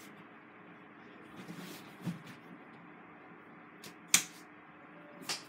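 Grapplers' bodies shifting and rubbing on a foam mat, with a sharp impact a little past four seconds in and a smaller one near the end.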